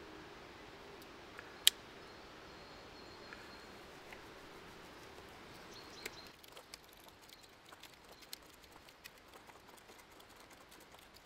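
Swiss Army pocket knife whittling a green stick: faint scraping of the blade through the wood. There is one sharp click about two seconds in and a run of light ticks in the second half.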